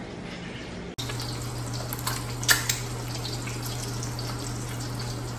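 Egg frying in oil in a wok, a steady sizzle with small crackles over a low steady hum, starting about a second in after a moment of quiet room tone.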